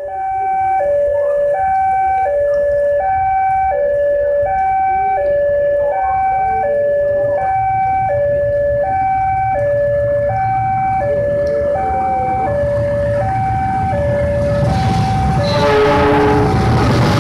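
Electronic two-tone warning alarm alternating steadily between a high and a low note, about one high-low cycle every 1.2 seconds. Near the end a broad rumbling noise builds up, with a brief lower tone.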